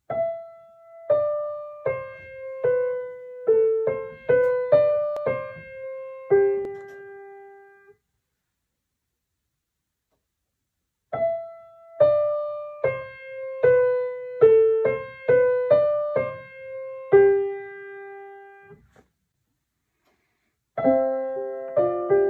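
Piano played by the right hand: a short single-note melody of about ten notes that falls in pitch, played twice with a pause of a few seconds between. Near the end both hands come in with fuller chords.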